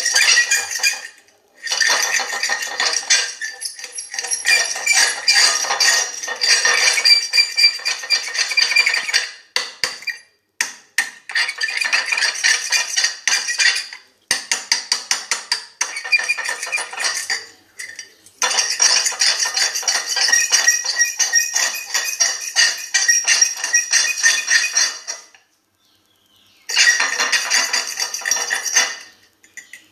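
Fork scraping across a plate, a shrill metallic squeal with several steady high pitches. It comes in stretches of a few seconds broken by short pauses, with one longer pause near the end.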